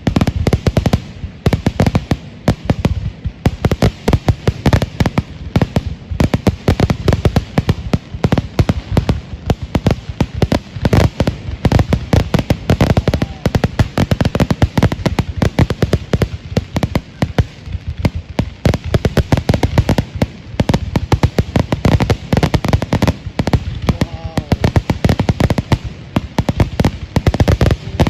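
Fireworks display going off in a dense, unbroken run of bangs and crackles, many a second.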